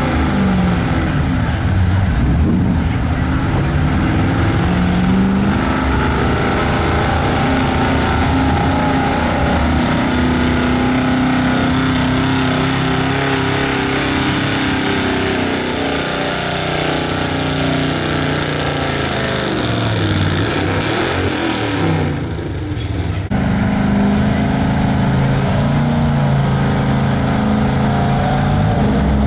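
Pickup truck engine running hard under load as it drags a weight-transfer sled through the dirt, its pitch climbing and falling repeatedly. The sound drops briefly about 22 seconds in, then the engine is loud again.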